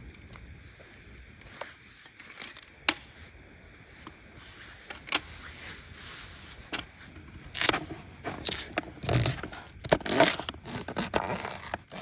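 Handling a folding camp table: sharp clicks and scrapes of its frame as it is unfolded and set up. In the second half, dense rustling and crinkling of a plastic bag being handled.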